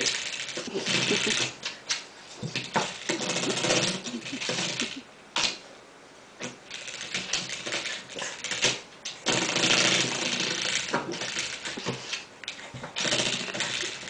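Spring door stopper rattling and twanging against the baseboard as a puppy paws and bites at it, in irregular bursts of rapid clicking with short lulls.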